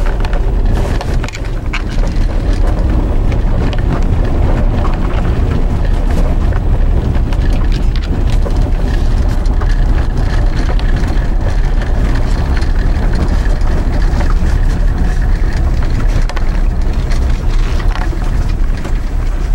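Vehicle driving along an unplowed snow-covered forest road: a loud, steady low rumble of tyre and road noise, with scattered small crackles throughout.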